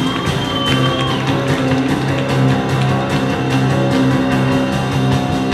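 Live band playing an upbeat number with guitar, drums and strings over a steady beat, ending on a final hit near the end.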